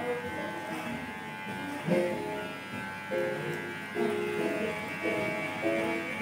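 Background music with short melodic notes, over a steady electric buzz.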